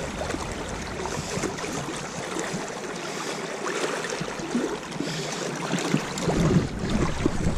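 Shallow river running over a stony riffle: a steady rush of moving water, with a few soft low bumps in the second half.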